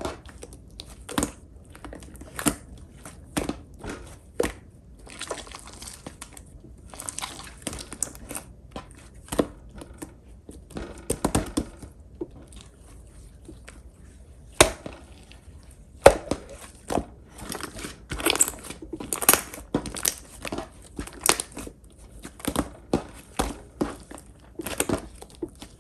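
Clear pink slime being squished, pressed and stretched by hand, giving irregular sharp clicks and short crackling patches.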